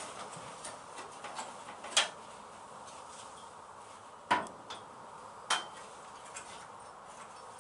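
Metal tools clinking and knocking against the car's sheet-metal bodywork: three sharp knocks, about two seconds in, past the middle and a second later, with fainter small ticks between.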